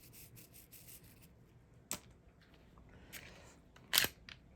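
Glock 26 pistol being handled: a sharp mechanical click about two seconds in, a fainter one a second later and a louder click near the end, with faint rustling between.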